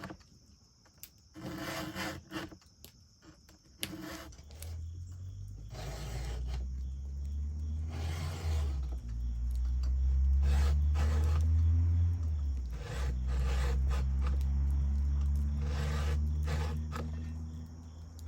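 Hand file rasping across chainsaw chain cutters while sharpening the chain, in irregular strokes. A steady low hum builds from about four seconds in and becomes the loudest sound.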